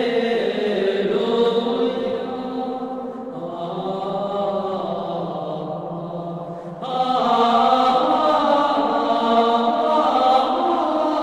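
Slow vocal chant with long held notes, growing louder and fuller about seven seconds in.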